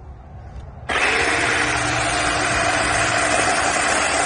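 Ryobi brushless battery chainsaw switched on about a second in, its electric motor and chain then running steadily at full speed.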